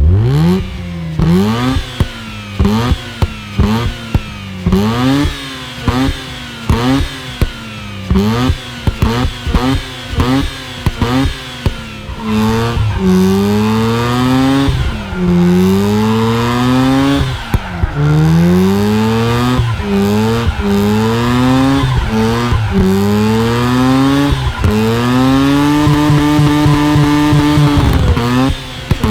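Mazda RX-8 R3's two-rotor Renesis rotary engine, breathing through a Racing Beat intake and an Invidia Q300 exhaust with no catalytic converter, revving. It starts with quick throttle blips, more than one a second, each rising and dropping sharply. Then come longer climbs in pitch lasting one to two seconds, ending with a high rev held for a few seconds that drops away near the end.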